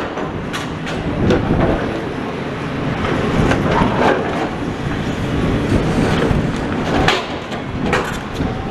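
Demolition excavator working rubble, a steady low engine rumble with irregular knocks and clanks of debris and metal being grabbed and dumped. Strong wind buffets the microphone.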